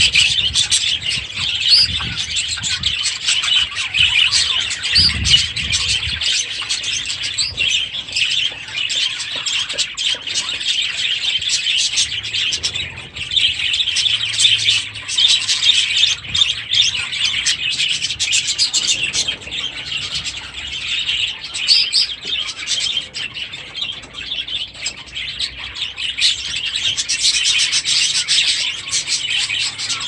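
A flock of budgerigars chattering and warbling, many birds at once in a dense, continuous stream of quick chirps.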